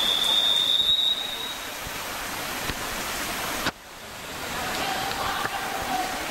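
A long, steady whistle blast of about a second and a half: the referee's signal for swimmers to step up onto the starting blocks. It is followed by pool-hall background noise, which drops off abruptly about halfway through.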